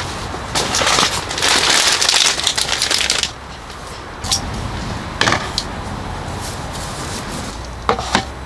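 Crinkling, rustling handling noise for a couple of seconds, then several sharp separate clicks and knocks, over a steady low rumble.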